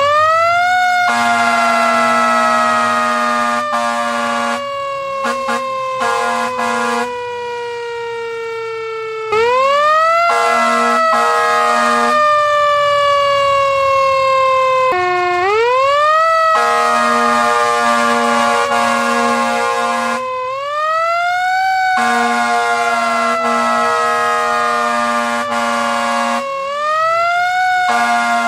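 A siren that winds up quickly and then falls slowly in pitch, five times over, with an air horn sounding in several long, steady blasts over and between the sweeps.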